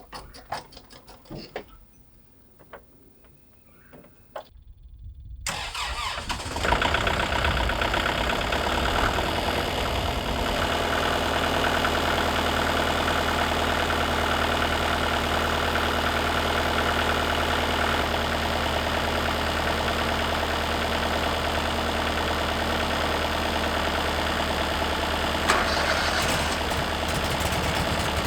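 A few faint clicks, then an engine starts about five seconds in, picks up over a second or so and settles into a steady idle. It is a cold start on a freezing morning, left running to warm up.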